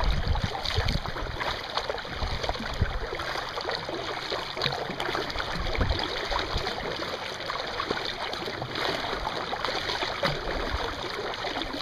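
Kayak paddle strokes: the blades dipping and pulling through the lake water, with steady splashing and dripping.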